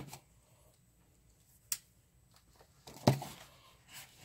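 Cardboard shipping box being handled and its taped-down flaps pulled open: a single sharp click a little under two seconds in, then a louder rustle and knock of cardboard about three seconds in and a softer one just before the end.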